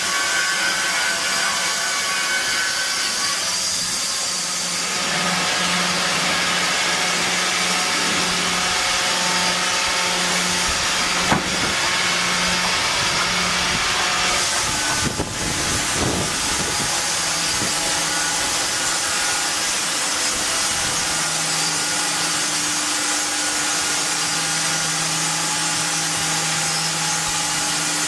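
Two-blade circular-saw edger running, its electric motors humming steadily under a broad hiss as boards are fed through and ripped along their edges. A single sharp knock about midway.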